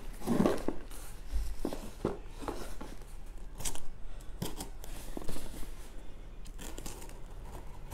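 A cardboard box in a clear plastic shipping mailer being handled and a box cutter being readied: irregular rustling, scraping and clicking.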